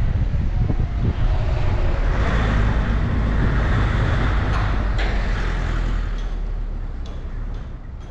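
Road vehicle and traffic noise, a steady heavy rumble that fades away over the last two seconds.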